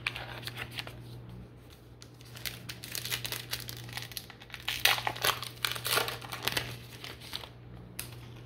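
A Topps Archives baseball card pack's wrapper crinkling and tearing as it is pulled from the box and torn open. The crinkling comes in a run of rustles that is loudest about five seconds in.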